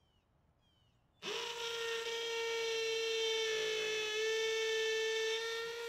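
Cordless drill starting about a second in with a quick spin-up, then running at a steady high whine as it drives a screw through a plywood window board.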